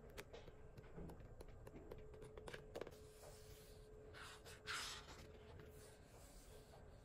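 Paper sticker-book pages being handled and turned: soft rustles and light taps, with one louder papery swish of a page about four seconds in.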